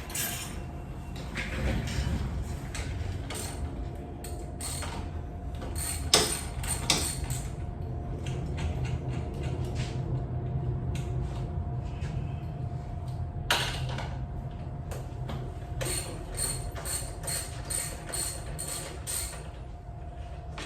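Metallic clicks, knocks and ratcheting from hand work on a bicycle wheel and its parts. The sounds are scattered, with two louder knocks partway through and a quick run of even clicks near the end, over a steady low hum.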